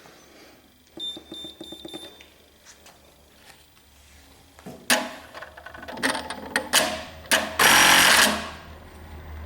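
Brother KE-430F electronic bartacking machine at work: a second-long run of rapid, even strokes with a steady high tone about a second in, then a string of sharp mechanical clacks and a short, loud rush of noise near the end.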